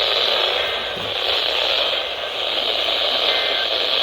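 Weather radio receiver hissing with steady static, no voice on the channel.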